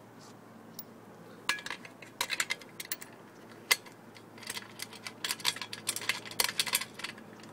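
Small metal hardware clicking and clinking against an aluminium solar racking rail as it is undone by hand. The taps are scattered from about a second and a half in and come quick and close together in the second half.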